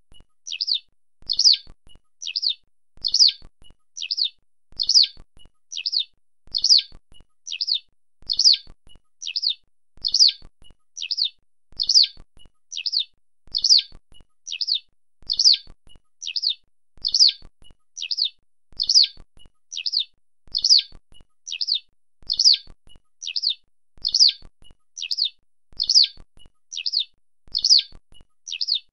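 Eurasian skylark giving its call: short, high chirps repeated evenly about once a second, every other one louder.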